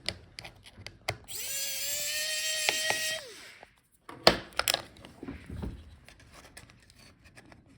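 Electric precision screwdriver spinning for about two seconds to remove a laptop speaker screw: its motor whine rises as it spins up and drops as it stops. Light clicks and taps of small parts being handled follow.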